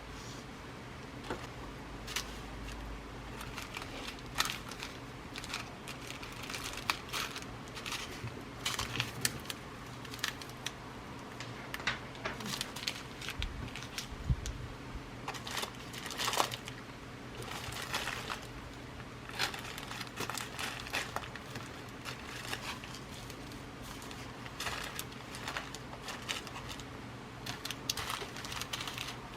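Glass seed beads and their packets being handled and rummaged through: irregular rustling with many small, sharp clicks of beads, over a faint steady low hum.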